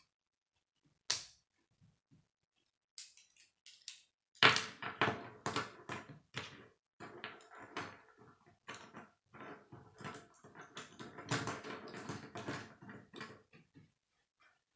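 K'nex plastic rods and connectors clicking and snapping together by hand, with pieces knocking and clattering on a wooden tabletop. One sharp click about a second in, then a dense run of clicks and knocks through the middle.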